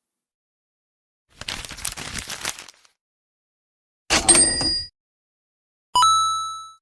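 Three separate short sound effects, with silence between them: a crackling, crinkly rustle lasting about a second and a half, then a short metallic clatter with a faint ring, then a single bright struck ding that rings and fades away.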